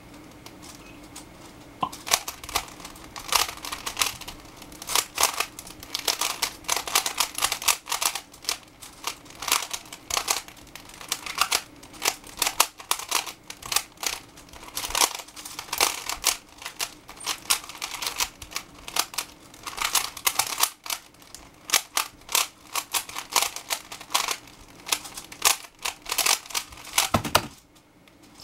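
A 3x3 Rubik's cube being speed-solved: the plastic layers turning in rapid flurries of clicking and clacking, with brief pauses between bursts. A louder thump comes near the end, as the solve is stopped.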